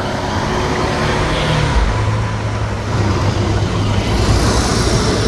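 Lamborghini Aventador's V12 engine running at low revs as the car rolls away slowly, its note shifting lower about two seconds in.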